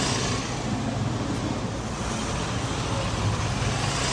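Steady street traffic noise from vehicles passing on a city street.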